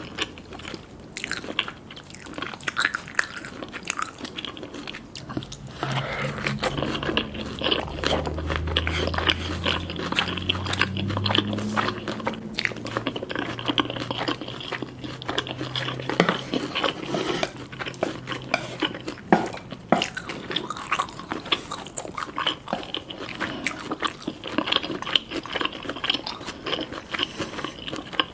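Eating sounds: crunchy bites into Korean fried chicken and chewing, a dense run of irregular crunches throughout.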